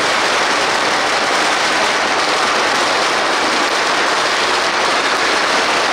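Loud, steady din of a large street crowd in a procession.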